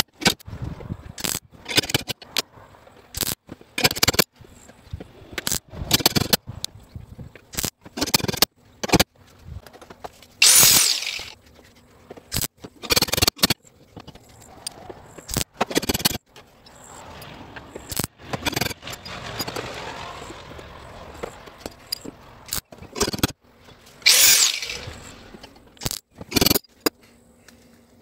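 Dent pulling on a steel truck cab panel: a small slide hammer is welded onto the sheet metal and knocked outward, giving a run of irregular sharp knocks. There are a couple of longer hissing bursts, about ten seconds in and near the end.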